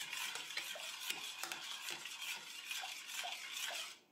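Metal spoon stirring tomato sauce in a stainless steel saucepan, with soft scrapes and light ticks against the pan over a faint steady hiss from the sauce heating toward a boil. The sound cuts off just before the end.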